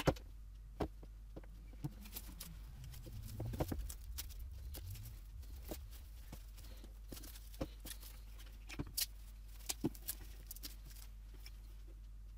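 Irregular light clicks and knocks of pliers and the plastic headlight housing being handled on a table, with a brief low rubbing and scraping sound about two to five seconds in, over a faint steady low hum.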